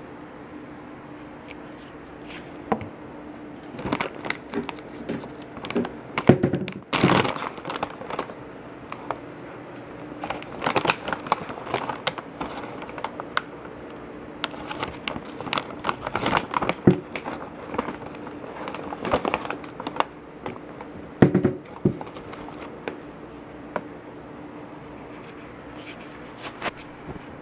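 Foil treat pouch crinkling and rustling as it is handled, in irregular bursts, loudest about six or seven seconds in.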